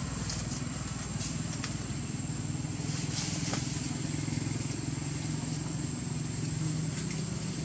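Steady low motor hum, with a thin, steady high-pitched tone above it.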